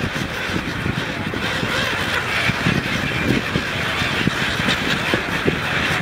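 A flock of gulls calling as they wheel close overhead, under a steady rushing noise with low, rumbling gusts.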